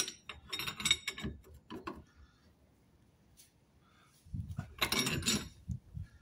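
Metal hand tools clinking and rattling in short, irregular clusters during spanner work on the car's rear suspension, with a quiet gap of about two seconds in the middle. The second cluster has duller knocks mixed in.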